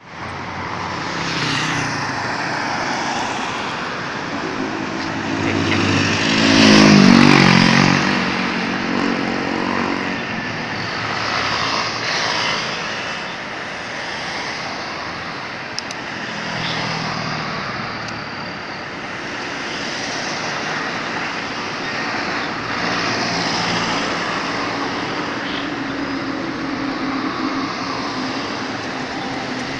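Outdoor traffic noise: an engine passes by, swelling to its loudest about seven seconds in and then fading, with fainter vehicles going by later.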